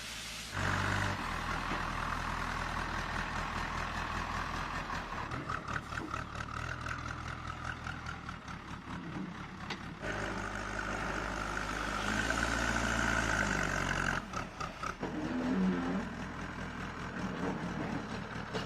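Heavy truck engines running at idle with road noise, a steady low hum that changes abruptly several times between shots.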